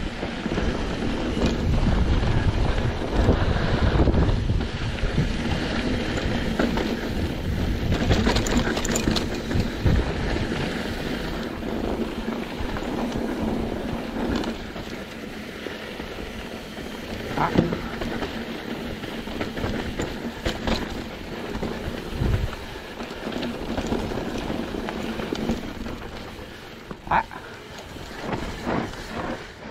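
Mountain bike ridden fast down a dirt trail: wind buffeting the microphone over tyre and chassis rattle, with a few sharp knocks from the bike over rough ground. It is louder over the first ten seconds or so, then eases.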